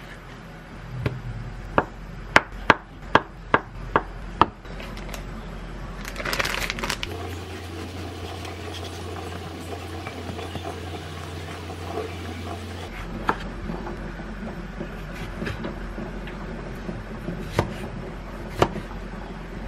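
Knife work on a wooden cutting board: a quick run of sharp taps in the first few seconds, a short scraping rustle, then a quieter stretch with a low steady hum while a loaf is sliced. Near the end come a few single knocks as a knife cuts tomatoes into wedges.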